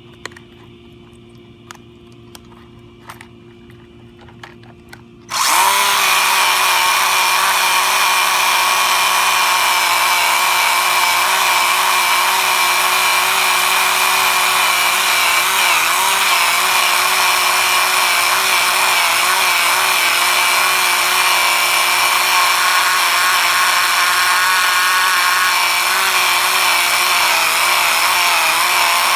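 Small electric RC buggy at full throttle while held down on concrete, its motor and drivetrain whining steadily at high pitch as the wheels spin in a burnout. The whine starts suddenly about five seconds in, after a few faint clicks.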